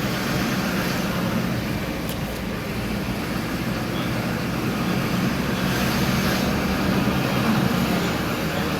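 Steady road traffic noise from vehicles driving past, swelling slightly near the end as one passes closer.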